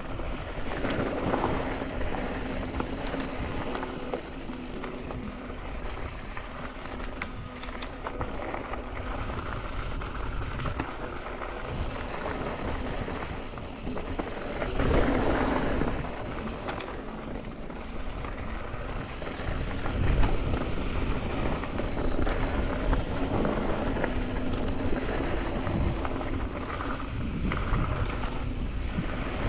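A Yeti SB165 full-suspension mountain bike rolling fast down a rocky dirt trail: tyres crunching over gravel and small rocks, the bike rattling over bumps, and wind rushing over the microphone. It swells louder about halfway through.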